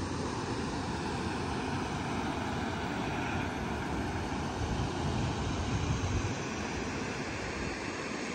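Steady rush of a fast mountain river running over stones and rapids. A deeper rumble swells briefly about five to six seconds in.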